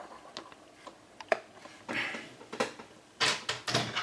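Light clicks, taps and short scuffs from hands handling a laptop's plastic screen bezel and lid, a few scattered sharp clicks followed by brief rustling handling noises in the second half.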